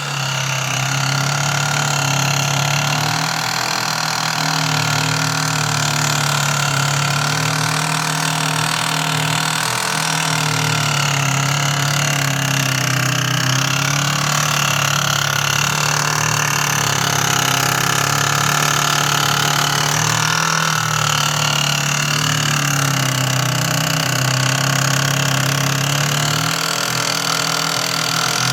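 GE Profile Opal nugget ice maker running with a loud, continuous grinding noise over a steady low hum, its higher tones wavering. The noise is a fault in the nearly new machine that cleaning and GE's troubleshooting steps did not cure.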